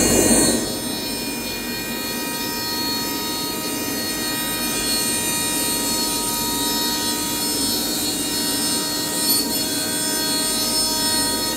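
AKM1530C ATC CNC router with servo drives running: a steady, jet-like whine made up of several held tones from the high-speed spindle and machine. It is louder at the very start, drops about half a second in, then holds steady.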